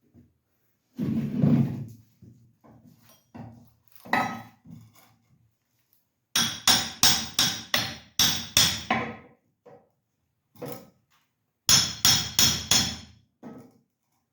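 Hammer blows on the goat pen under construction, in two quick runs of evenly spaced strikes at about three a second, the first of about eight and the second of about five. Scattered single knocks come between the runs, and a short scraping or rustling sound comes about a second in.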